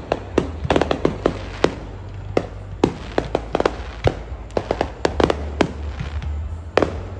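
Fireworks going off: a rapid, irregular string of sharp bangs and pops, some louder reports standing out, over a steady low rumble.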